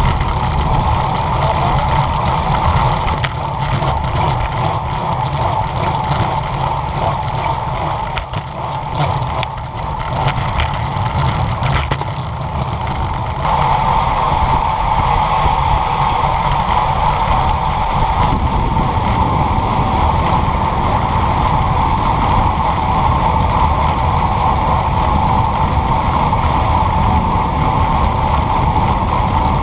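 Wind rushing over a bicycle-mounted camera and tyre noise from a road bike rolling along asphalt at speed, with a steady hum that gets louder about halfway through.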